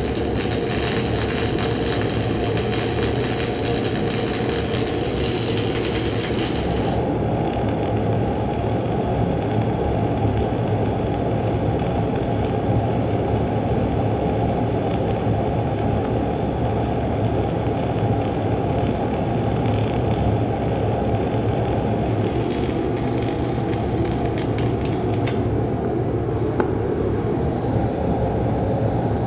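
Twin-wire flux-cored (FCAW-G) welding arc burning steadily in a vertical-up groove weld, a continuous hiss over a low rumble. The hiss eases about seven seconds in and drops further near the end, while the low rumble carries on.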